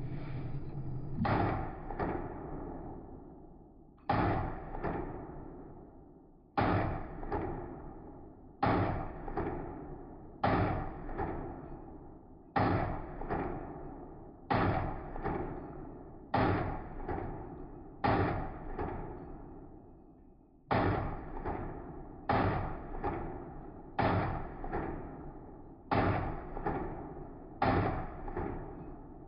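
Pistol shots fired in quick pairs, one pair about every two seconds, each shot trailing off in a ringing echo.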